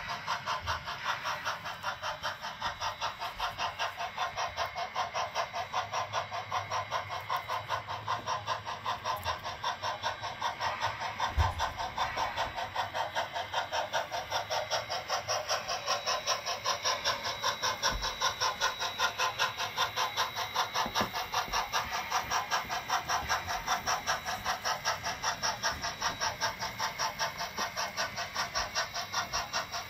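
On30 scale model steam locomotive running with a steady, rapid chuff of about three beats a second. There are two brief low thumps, one about eleven seconds in and one about eighteen seconds in.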